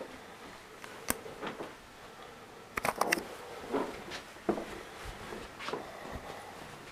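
Footsteps of a person walking through a small room and hallway, soft steps roughly every two-thirds of a second, with a sharp click a second in and a quick cluster of clicks and knocks about three seconds in.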